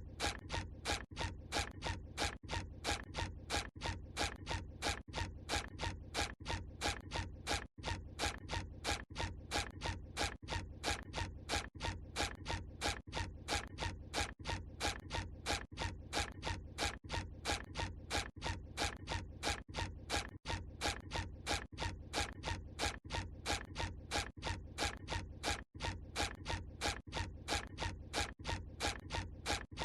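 The SpongeBob SquarePants cartoon walking sound effect: short footstep sounds repeating at an even pace, about three a second.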